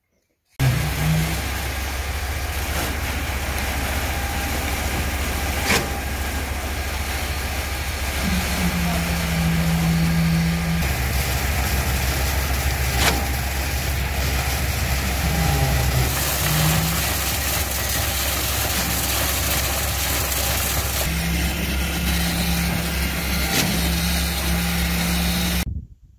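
Concrete pump engine running steadily as concrete is pumped into pool wall formwork, with a higher whine that comes and goes and two sharp knocks.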